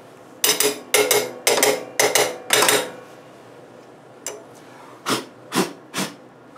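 An old steel planer blade scraping grime off the cutter bar of a Makita 2012 portable planer, metal on metal: five quick rasping strokes in a row, then a pause and three shorter strokes near the end. The scraping clears residue from under the blade seat before a new blade goes in.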